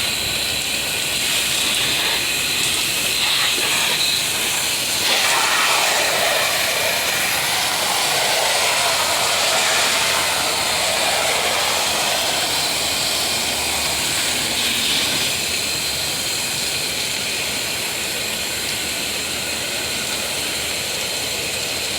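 Pressure washer spraying: a steady, loud hiss of the water jet, its tone shifting now and then as the spray moves across the surface.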